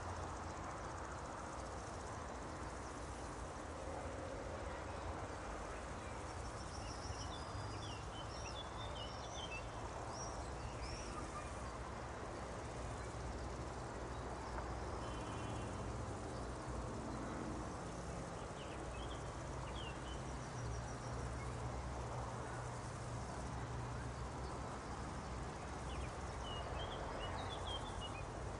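Meadow nature ambience: a steady low rushing noise with small clusters of high, quick bird chirps and twitters scattered through it.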